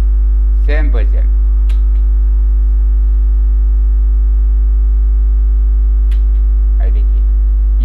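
Loud, steady electrical mains hum with a ladder of overtones, picked up through the recording chain. A few faint clicks sound through it.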